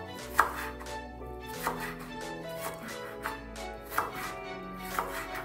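Kitchen knife chopping an onion on a wooden cutting board: about five separate strikes roughly a second apart, the first the loudest, over soft background music.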